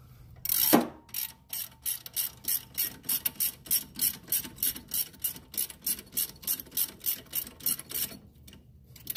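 Hand ratchet wrench clicking steadily, about five clicks a second, as it runs a nut onto the bolt holding the new strut to the steering knuckle. The nut is being snugged, not yet torqued. A single metal clank comes just under a second in.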